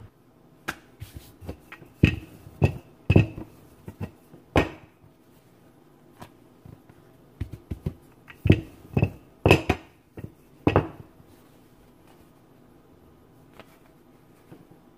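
Wooden rolling pin knocking and rolling against a countertop as flour tortilla dough is rolled out: a series of short, sharp knocks in two clusters a few seconds apart.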